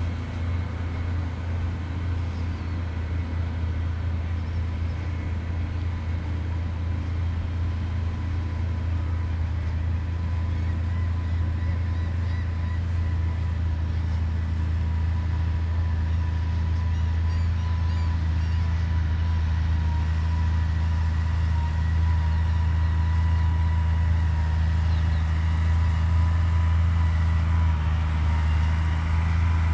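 Steady low engine drone of a tractor running on the beach sand, with a faint whine above it, growing a little louder toward the end.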